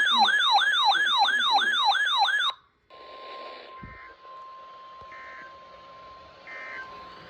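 Weather alert radio receiver's siren-like alarm warbling loudly in fast up-and-down sweeps, about three a second, then cutting off suddenly about two and a half seconds in. After a brief gap, faint radio static with a faint steady tone and three short bursts of digital tone about a second apart, the pattern of an EAS (SAME) data header.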